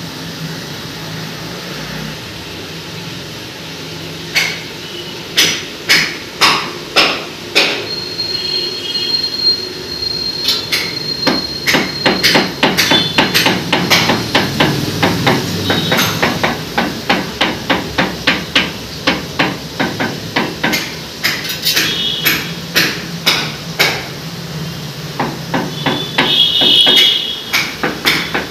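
A mallet tapping ceramic wall tiles to bed them into their cement mortar: separate knocks about a second apart at first, then quick runs of about three or four taps a second.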